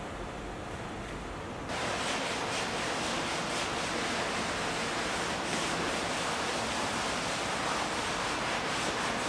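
Wet sponge scrubbing over a painted canvas: a rough, steady hiss with faint irregular strokes. It comes in suddenly about two seconds in, after a quieter stretch.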